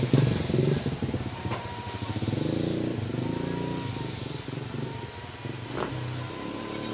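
Small single-cylinder water pump engine running on LPG gas, with a rapid, even firing beat; it eases down in loudness over the first second or so, then runs steadily.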